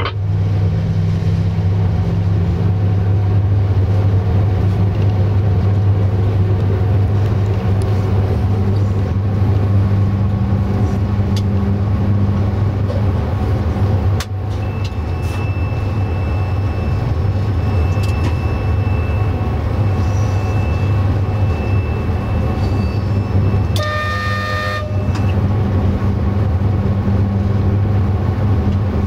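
Cab of a 060-EA electric locomotive running with a passenger train: a steady low hum over rumbling wheel and rail noise. A faint high steady tone holds through the middle, and about 24 seconds in a train horn sounds for just over a second.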